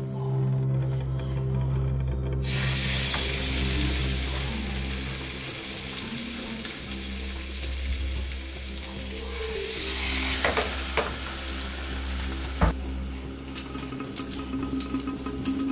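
Filefish fillets sizzling in hot oil in a non-stick frying pan, the sizzle coming in strongly about two seconds in, with stirring and scraping in the pan. One sharp knock about two-thirds of the way through.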